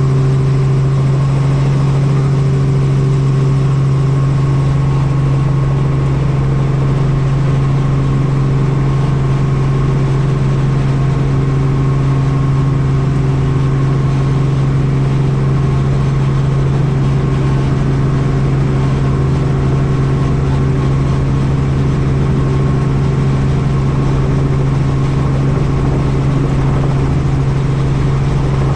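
Helicopter in flight: a steady, unchanging drone of engine and rotor, a strong low hum with higher tones above it.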